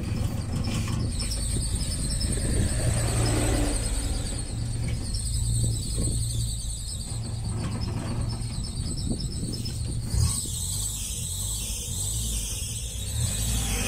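Toyota 3A four-cylinder engine idling with its fan belt squealing in a steady high pitch: the belt is slack and worn, its adjusting bracket already at the end of its travel, so it needs replacing.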